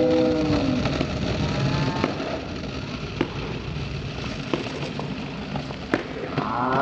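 Skateboard wheels rolling on concrete, a steady rumble broken by scattered sharp clicks and knocks from the board.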